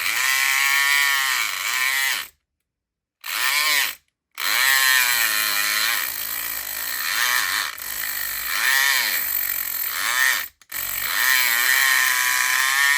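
Southord E500XT electric lock pick gun running with its pick in a lock cylinder, a loud motor buzz whose pitch keeps rising and falling. It runs in four bursts, stopping briefly about two seconds in, again near four seconds and once more near ten and a half seconds.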